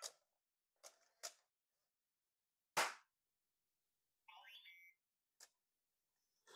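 Mostly near silence with a few faint clicks, then one sharp hand clap about three seconds in. About a second and a half later the Hasbro LO-LA59 animatronic droid toy answers with a short run of electronic chirps and beeps.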